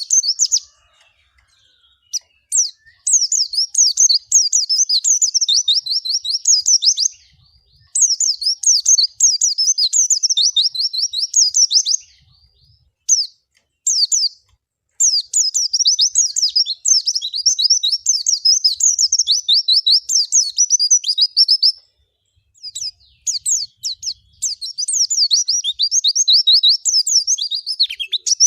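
Pleci (white-eye, Zosterops) singing: long runs of rapid, high twittering notes lasting several seconds each, broken by short pauses.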